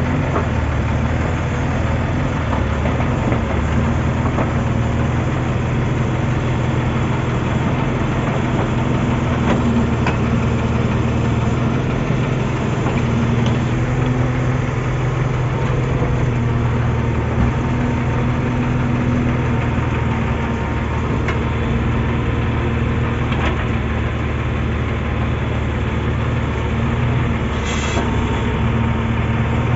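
Heavy diesel engine of earth-moving machinery running steadily in a low drone, with a few faint knocks.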